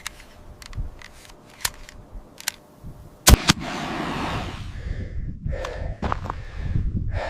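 A few small clicks of a flare gun being handled, then the flare gun fired about three seconds in with a sharp double crack, followed by a fading hiss as the flare goes up.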